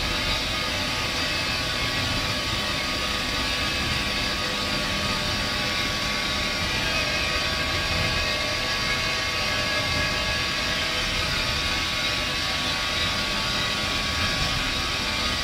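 Paper-recycling plant machinery running: a steady, unbroken roar with a faint constant whine.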